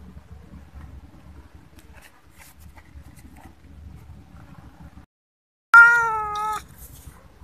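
A hungry stray cat meows once, loudly, near the end, a call under a second long whose pitch dips slightly, over a faint low rumble.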